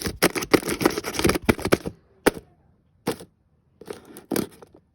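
A taped-up paper package being torn open and crumpled by hand: a quick run of rips and crackles for about two seconds, then a few separate tears.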